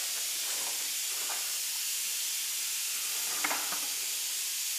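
Steady high-pitched hiss with a few faint light taps or ticks, about half a second, a second and a third, and three and a half seconds in.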